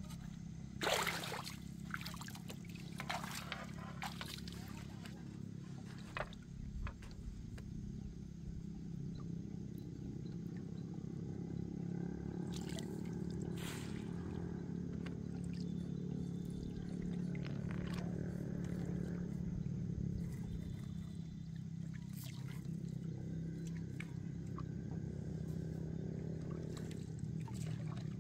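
A steady low engine hum, with sharp knocks and clicks in the first seven seconds, the loudest about a second in, as the bamboo net frame and its ropes are handled.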